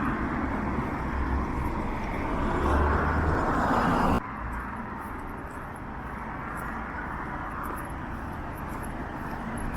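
Street ambience with passing car traffic, louder for the first four seconds, then dropping abruptly to a quieter steady background hum.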